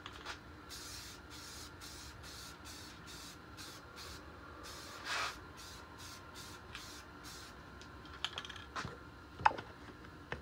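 Aerosol can of Rust-Oleum gloss enamel spray paint hissing in a quick series of short bursts, about two to three a second, with one longer burst about halfway through. This is a coat of paint going onto a masked outboard motor hood. A few sharp knocks follow near the end.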